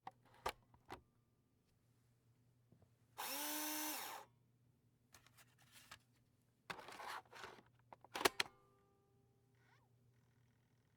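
Disk drive taking in a disk: a couple of sharp clicks, then about a second of motor whirring whose pitch rises and falls away, followed by mechanical clatter and a cluster of clicks near the end, faint overall.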